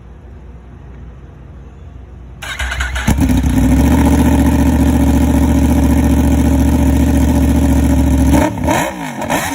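Yamaha R1 crossplane inline-four on an aftermarket exhaust starting up about two and a half seconds in and settling into a loud, steady idle, then blipped with quick revs near the end.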